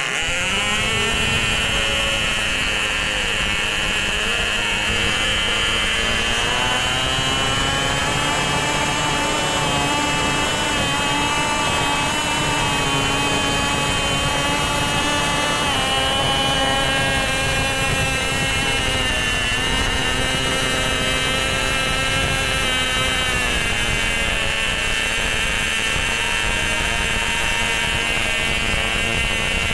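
Nitro glow engine of a Kamdax MiG-15 RC plane running at high revs with a high whine. Its pitch climbs a few seconds in and falls back twice later as the throttle is worked.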